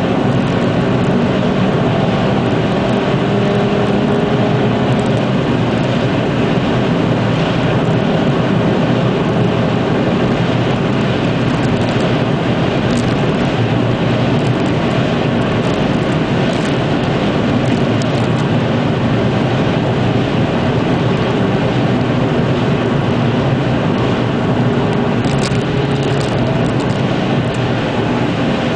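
Cabin sound of a VW Golf GTI's 2.0-litre turbocharged four-cylinder engine cruising at speed: a steady engine drone under loud tyre and wind noise on a wet road.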